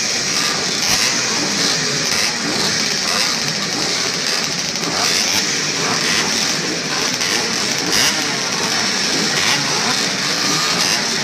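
A pack of classic two-stroke motocross bikes running together on the start line, many engines revving at once in a dense, uneven mass.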